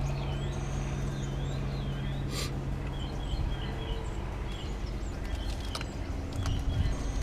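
Small birds chirping over and over, short repeated calls, over a low steady background rumble, with a few light clicks in the second half.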